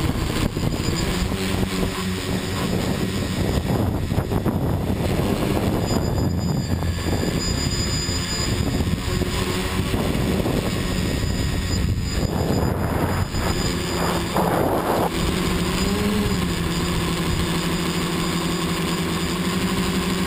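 A multirotor drone's motors and propellers whirring steadily, heard from its onboard camera, with wind rumbling on the microphone. About 16 seconds in, the hum's pitch briefly rises and falls back.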